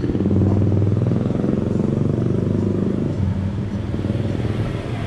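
A motor vehicle's engine running close by with a steady low drone, easing off after about three seconds as it moves away.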